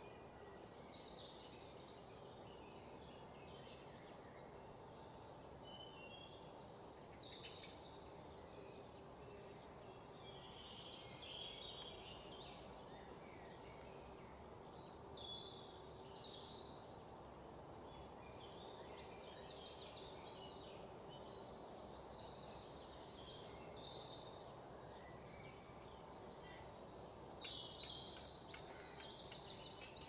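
Small birds chirping and calling faintly, with short rapid trills in the second half, over a steady low background noise.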